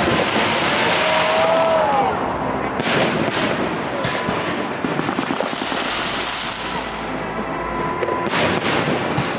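Fireworks going off: a rapid, irregular run of loud bangs over a continuous crackle.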